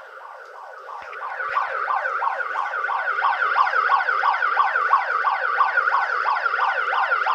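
Electronic alarm siren sounding in rapid repeating falling sweeps, about three or four a second. It grows louder about a second in and then runs steadily until it cuts off suddenly at the very end.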